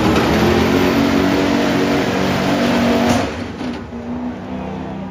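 Ford Super Duty diesel pickup at full throttle pulling a weight-transfer sled, the engine running hard under heavy load. A little over three seconds in the throttle comes off and the engine drops sharply in loudness as the pull ends.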